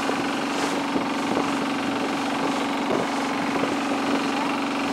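Longtail boat's engine running under way at a steady speed: a loud, even drone with an unchanging hum.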